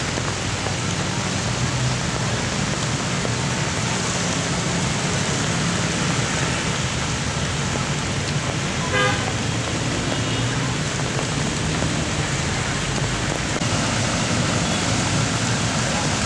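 Steady hiss of heavy rain mixed with the low hum of road traffic, with one short car-horn toot about nine seconds in.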